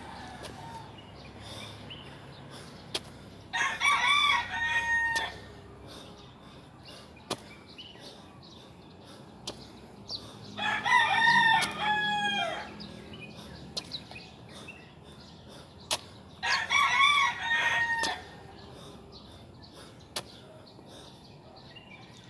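A rooster crowing three times, each crow lasting about one and a half to two seconds, several seconds apart.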